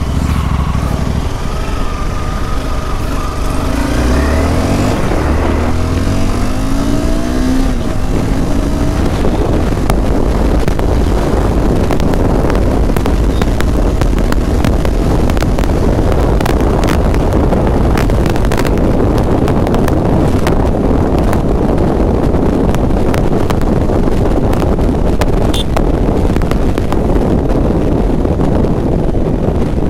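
A freshly oil-serviced Honda CBR motorcycle pulling away, its engine rising in pitch through several gears in the first several seconds. It then settles into a steady rush of engine and wind noise while riding.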